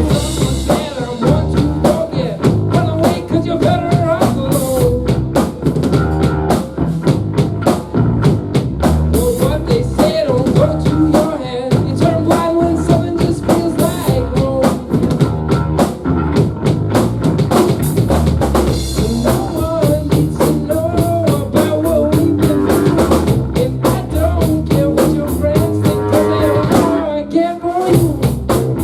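Live rock band playing: drum kit with steady hits and rimshots, electric guitar and bass, with a sung melody over the top.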